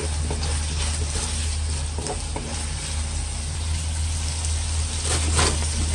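Chicken wings, potato and bell pepper sizzling in a nonstick wok, with a wooden spatula stirring and scraping through them a few times, over a steady low hum.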